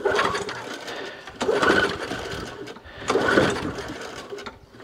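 Briggs & Stratton Classic 35 lawn mower engine being cranked on its pull-cord recoil starter, three pulls about a second and a half apart, each a sharp whirring crank that fades away without the engine catching. It won't fire even after priming, which the owner takes for a possible carburettor issue.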